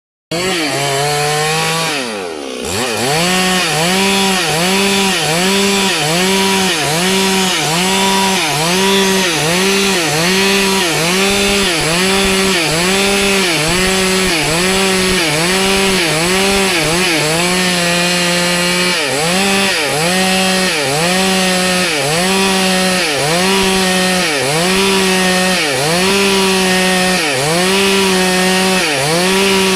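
Stihl two-stroke chainsaw running at high revs while cutting wood. Its engine note dips and recovers about once a second as the chain bites and frees in the cut.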